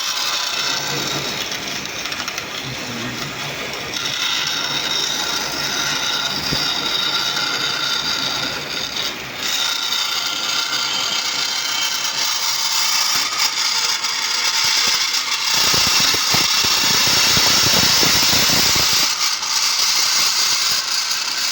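Vertical band saw running with a steady mechanical whirr, growing louder and fuller for about three seconds near the end.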